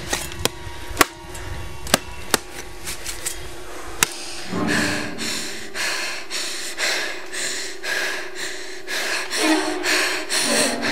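Hand-tool blows chopping into wood, a few sharp strikes in the first four seconds. Then a young woman's heavy, ragged breathing with gasps, in repeated surges.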